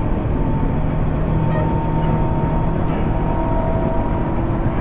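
Tobu 10030 series electric train running at speed, heard from inside a motor car: a steady rumble of wheels on rail with the traction motor and gear whine holding a level pitch.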